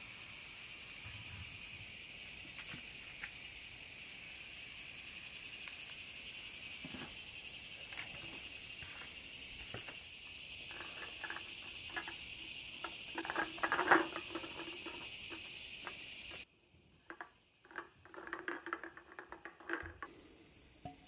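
Night insects trilling steadily, with a faint high chirp repeating about once a second, while things clink and knock, loudest about 14 seconds in. Near the end the insects cut out suddenly and empty aluminium beer cans clatter together.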